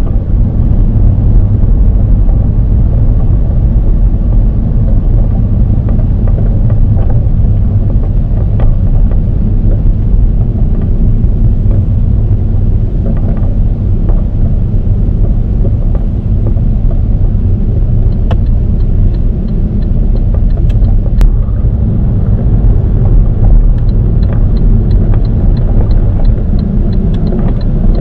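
Inside the cabin of a 2003 Saab 9-5 Aero on the move: steady engine and road rumble. About two-thirds of the way in, a light regular ticking joins it at about two ticks a second.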